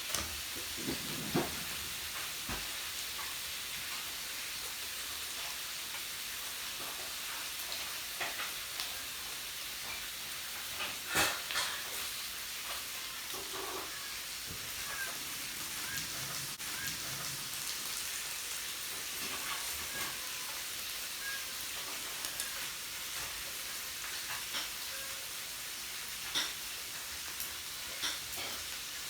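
Meat sizzling on a yakiniku grill: a steady hiss with scattered sharp clicks, the loudest about eleven seconds in.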